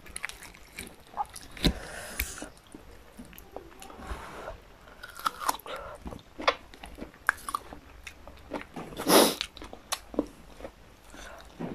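Close-up eating sounds: chewing, lip smacks and small clicks while picking at boiled pork leg and rice by hand, with a louder noisy burst about nine seconds in.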